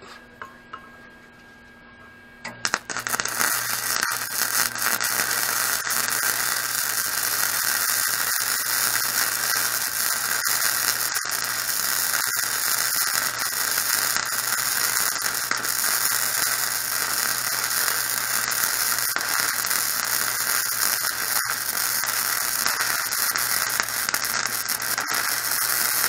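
Wire-feed welder arc crackling steadily as it runs a weld bead on steel tubing, over a steady low electrical hum. The arc starts about two and a half seconds in and cuts off at the very end.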